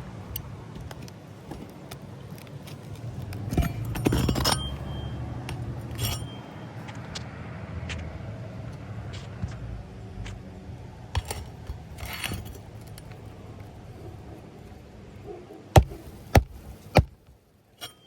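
Hand work on a shingle roof: metal tools and fasteners clinking and scraping over a low steady rumble, with three sharp knocks about half a second apart near the end.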